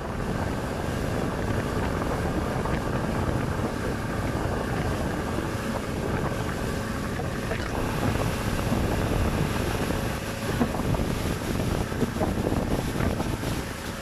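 Motorboat under way at speed: its outboard motor running, water rushing and churning in the wake, and wind buffeting the microphone.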